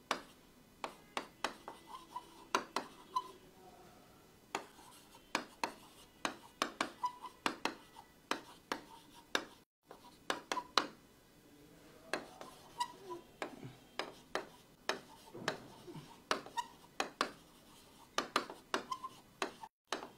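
Marker pen writing on a whiteboard: a rapid, uneven run of taps and short scratchy strokes with brief squeaks, breaking off for a moment about ten seconds in.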